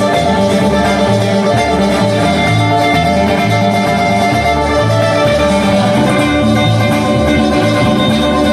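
Live acoustic band playing an instrumental break: acoustic guitars over an upright bass line with steady, repeating low notes.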